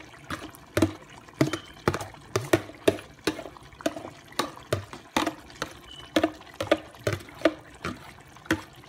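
A pot of curry chicken in its liquid, popping and plopping in short, wet pops at roughly two a second, irregularly spaced.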